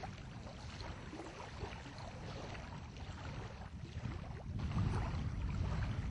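Wind buffeting the microphone as a low, steady rumble, growing louder about three-quarters of the way through.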